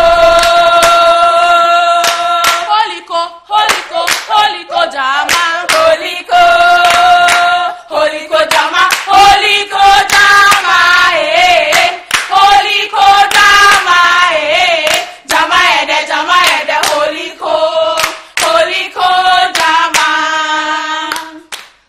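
A small group of women singing a school song or chant together, with hand claps.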